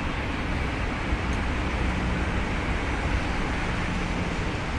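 Steady rumble and hiss of vehicle noise, with no distinct events, as a CPTM electric commuter train comes in along the curve toward the platform.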